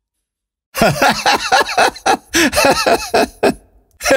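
A man laughing in a run of short, pitched bursts, starting about three quarters of a second in after dead silence.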